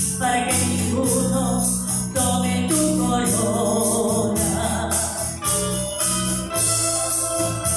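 A woman singing a gospel hymn into a microphone over electronic organ accompaniment with a steady, changing bass line, amplified through a loudspeaker.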